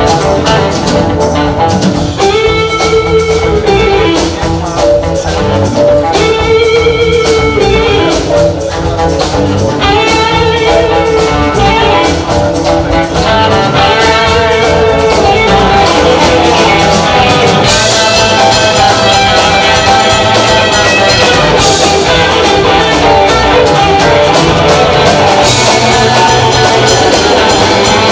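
Live blues-rock band playing an instrumental passage: an electric guitar plays a lead line over bass and drums. The cymbals get louder in the last third.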